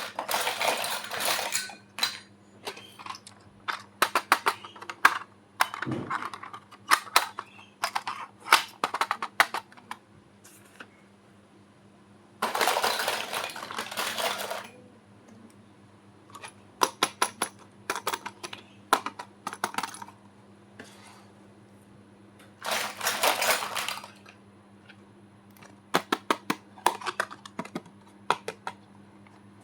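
Small plastic toy kitchen pieces clicking and clattering as they are handled and set down, in clusters of sharp taps. Three longer stretches of packaging rustle come at the start, about 12 seconds in, and about 23 seconds in.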